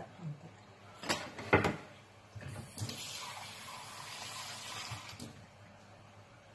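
Two sharp knocks, then a kitchen tap running for about three seconds, drawing more water for the tomato sauce.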